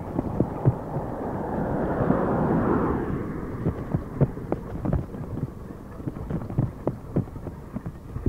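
Wind buffeting a phone's microphone while riding a bicycle along a road, with frequent small knocks and rattles. A louder rushing swell builds and fades about two to three seconds in.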